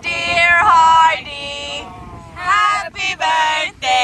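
A high-pitched female voice singing held notes in short phrases, broken by brief gaps.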